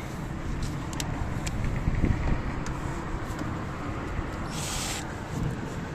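Light clicks and knocks of hand tools working on a car's diesel filter, with a short hiss about three-quarters of the way through, over a steady low background rumble.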